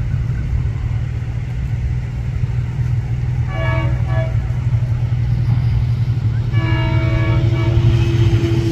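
Diesel locomotive air horn sounding for a grade crossing: a short blast about three and a half seconds in, then a long blast from about six and a half seconds that is still sounding at the end, over a steady low rumble.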